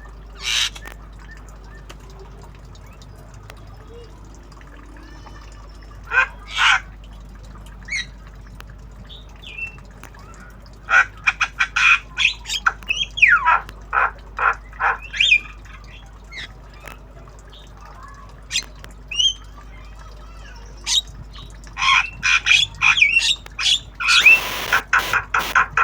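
Javan myna giving harsh squawks and short chirps in irregular bursts: a few single calls at first, then rapid strings of calls, some sliding down in pitch, in the middle and again louder near the end. The bird is still learning its calls.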